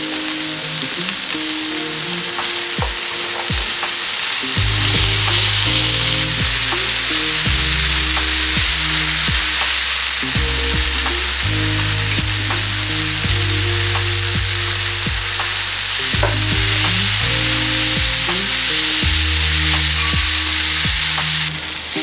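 Food sizzling in hot oil in a pan, stirred with a spatula that clicks against the pan now and then, over background music with a slow bass line. The sizzle drops away sharply just before the end.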